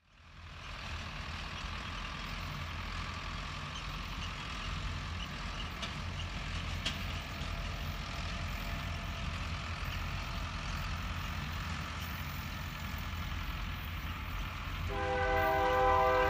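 A steady low rumble with a light hiss. About 15 seconds in, a diesel locomotive's air horn starts a loud, chorded blast, from Union Pacific EMD GP40-2 No. 1350 approaching the grade crossing.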